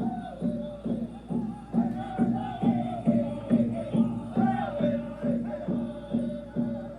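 Music played through an Eclipse Pro portable Bluetooth speaker: a steady fast beat, about two and a half pulses a second, under a held, wavering vocal or melodic line.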